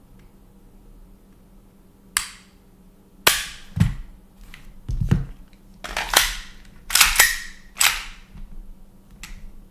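Airsoft Glock pistol firing: about ten sharp cracks at irregular intervals, some in quick pairs, after a quiet first two seconds.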